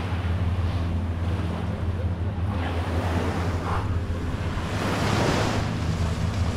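Sea waves washing onto the beach, with wind buffeting the microphone; one wash swells up louder about five seconds in. Under it, a steady low engine drone.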